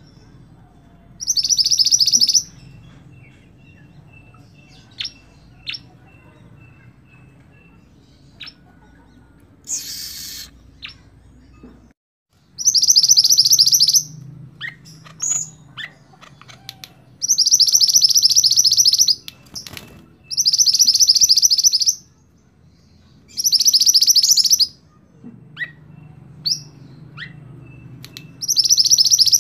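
Male red-and-black minivet (mantenan) singing: six loud, fast buzzing trills, each about a second long, repeated with pauses between them. Short high chips fall in the gaps, and a brief rustle comes about ten seconds in.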